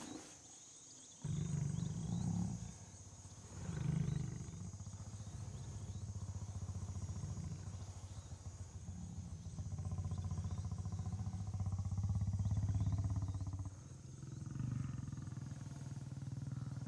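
African lion making a deep, rumbling vocal sound, a rapid low pulsing that starts about a second in and carries on with short breaks near three seconds and near fourteen seconds.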